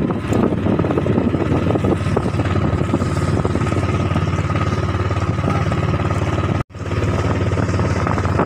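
A small fishing boat's engine running steadily under way, with wind and water rushing past the hull. The sound cuts out for an instant about two-thirds of the way through.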